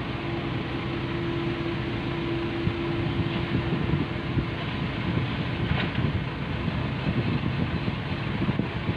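Case backhoe loader's diesel engine running as the machine works its front-loader pallet forks. From about three seconds in it sounds rougher and more uneven.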